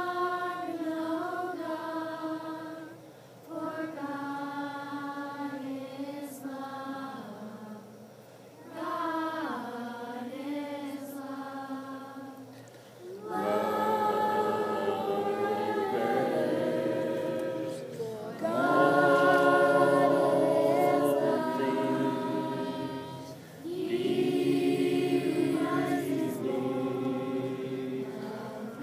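A group of people singing a worship song together, in phrases that grow louder from about halfway through.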